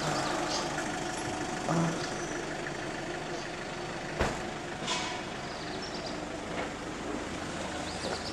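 A steady engine hum, as of a vehicle idling, with one sharp knock about four seconds in.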